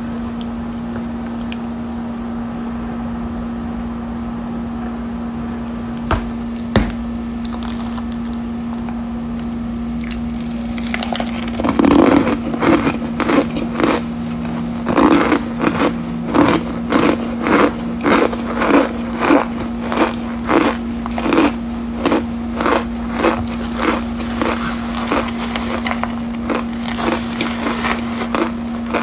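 Cornstarch powder being chewed close to the microphone: from about eleven seconds in, a regular run of short crunches, roughly one or two a second. A constant low hum lies underneath, with two sharp clicks a few seconds before the chewing begins.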